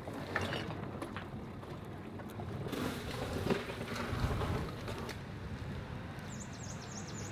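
Outdoor ambience: a low wind rumble with scattered knocks and rustles. Near the end a bird gives a quick run of short, high chirps.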